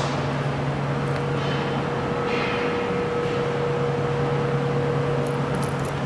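Steady mechanical hum: a low drone, joined about a second in by a higher steady tone, with a few light clicks near the end.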